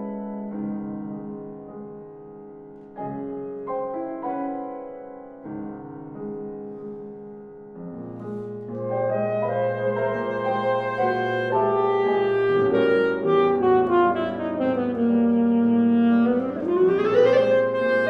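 Alto saxophone and piano playing a classical concerto movement: the piano plays spaced chords alone at first, then about eight seconds in the saxophone enters over it and the music grows louder. The saxophone line falls to a long low note and then sweeps quickly upward near the end.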